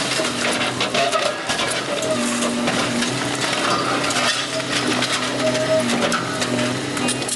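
Small hard objects clinking and rattling over a steady low hum.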